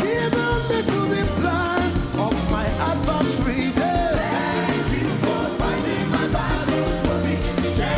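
Live gospel worship music: a band with a steady bass line, drums and cymbals, with voices singing a bending melody over it.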